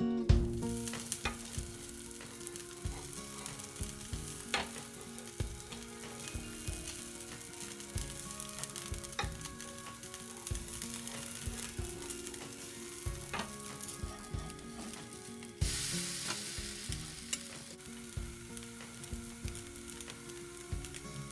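Dosa batter sizzling on a hot griddle, with occasional scrapes and taps of a metal spatula. About fifteen seconds in, the sizzle gets louder as the dosa is turned over onto its other side.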